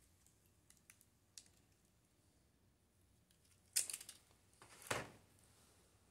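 Small clicks, then two louder scraping bursts of about half a second each, roughly a second apart near the middle, as the LCD screen of a Kodak compact digital camera is pried out of its metal frame.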